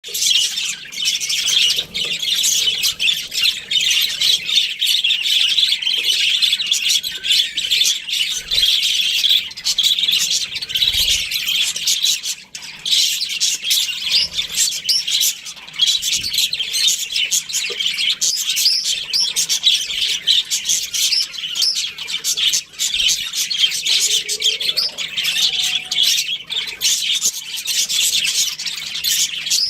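Budgerigars chattering and chirping continuously, a dense mix of high chirps and squawks from several birds.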